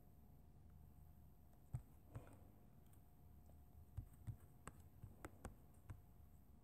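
Faint taps on a tablet's touchscreen while drawing: two near two seconds in, then a quicker run of about seven in the second half, over a faint steady hum.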